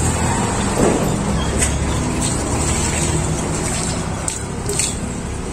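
Steady low rumble of a running motor vehicle engine, with water poured from a plastic dipper splashing over a dog a little after four seconds in.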